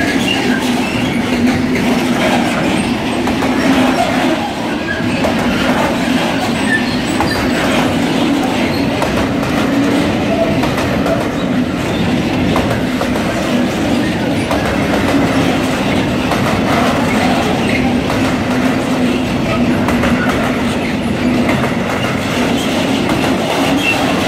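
Freight train's covered wagons rolling past at speed close by: a loud, steady rumble of wheels on the rails with a clatter of wheels over the rail joints.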